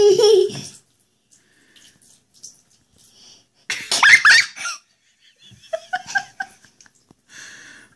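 Short bursts of human laughter and giggling: a brief one at the start, the loudest about four seconds in with a rising pitch, and a few short squeaky notes around six seconds.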